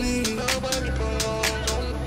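Background music: held melody notes over a steady percussive beat.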